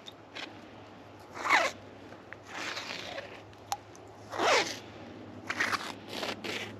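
Tip-up line being pulled out by hand over an ice-fishing hole: about five short zipping swishes, each falling in pitch and about a second apart, two of them louder than the rest.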